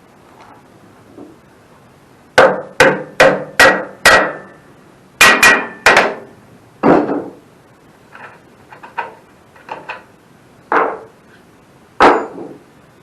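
Hammer blows on sawmill bunk metal, knocking a part loose. A quick run of five strikes comes first, then four more, then lighter taps and two single blows near the end, each with a short metallic ring.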